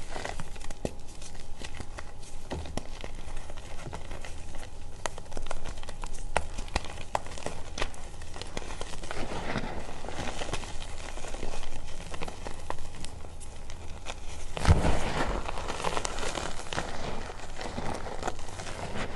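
Reformed gym chalk being crushed and crumbled by hand: many small dry crunches and clicks of chunks breaking, with powder sifting down. A heavier crunch with a dull thud about fifteen seconds in is the loudest moment.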